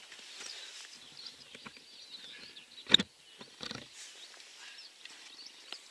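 Faint birdsong with one sharp knock about three seconds in, followed by a short clatter, as fishing gear is handled on riverbank stones.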